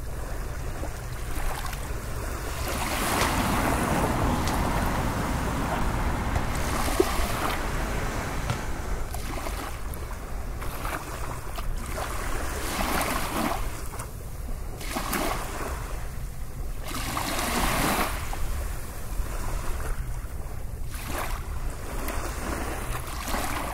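Sea waves washing in and drawing back, a rush of noise that swells and eases every couple of seconds.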